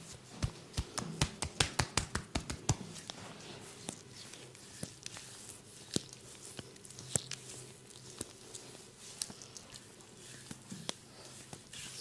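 A massaging barber's hands striking the body in a quick run of sharp percussive slaps, about six a second for two seconds, then occasional single taps.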